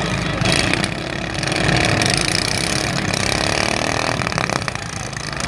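Several riding lawn mower engines running and revving together in a derby, with a brief clatter about four and a half seconds in.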